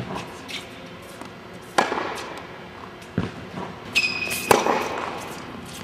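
Tennis balls struck by a racquet in an echoing indoor court: about four sharp hits, each ringing on after it, the loudest near the end, with a brief high squeak just before it.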